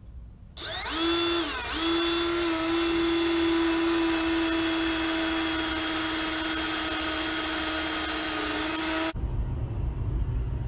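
Cordless drill boring engine mounting holes through the metal frame of a stump grinder. It starts briefly, stops for a moment, then runs with a long steady whine that cuts off suddenly about nine seconds in.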